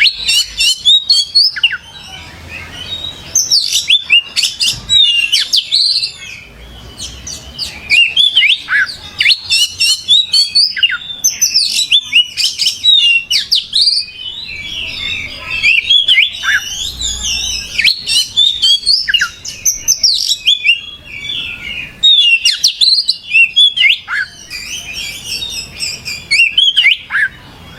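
Oriental magpie-robin (kacer) in full, vigorous song: loud, rapid, varied whistles and chirps delivered in bouts of several seconds with short pauses between them.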